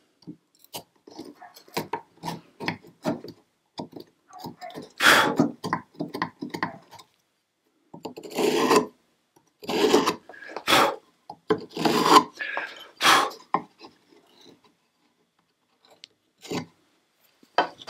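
Hand chisel paring and scraping wood around a fitted tenon: many short scraping strokes, with several longer, louder strokes in the middle, then a brief lull near the end.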